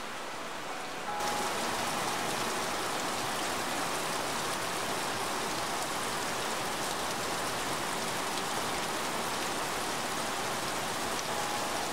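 Heavy rain falling, a steady even hiss that gets louder and brighter about a second in.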